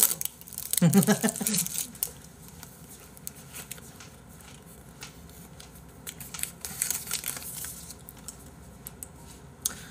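Crinkling and tearing of packaging handled in the hands, with faint scattered clicks. A short burst of a man's voice comes about a second in.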